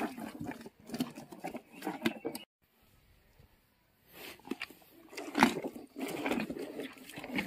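Hippopotamus chewing vegetables in its open mouth, with irregular wet crunches and clicks. The chewing breaks off for about a second and a half a little over two seconds in, and there is a sharp crack a little after five seconds.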